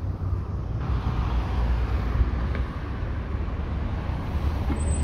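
A car's engine running as it drives slowly past at close range. It grows louder about a second in as the car comes near.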